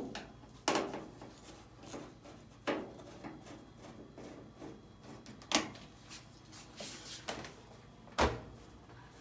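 Clicks and knocks of a screwdriver and hands on the metal and plastic cabinet and control panel of a Samsung front-loading washer, as screws along the panel's top edge are worked out and the panel is taken hold of. About five separate knocks, with a deeper thump about eight seconds in.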